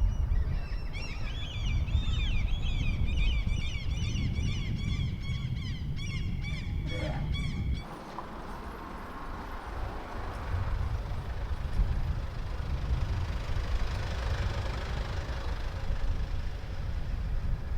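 Wind rumbling on the microphone while moving along a street. For about the first eight seconds, a rapid string of high chirping squeaks sounds over it, then stops abruptly.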